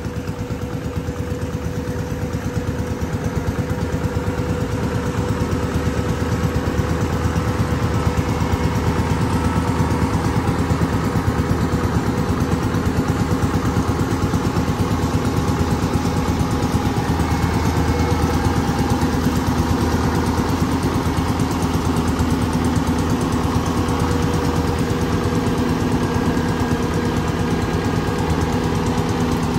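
Kubota DC105X combine harvester's engine and cutting and threshing machinery running steadily under load while harvesting lodged rice, growing louder over the first several seconds as the machine comes close, then holding level.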